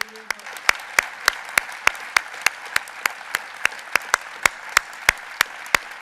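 Audience applauding, with one nearby clapper's sharp claps standing out at a steady rate of about three a second.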